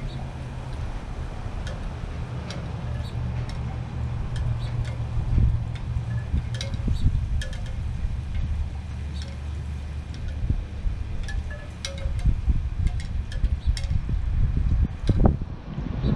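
Wind rumbling on the microphone in gusts, with a wind chime tinkling in short, scattered high notes.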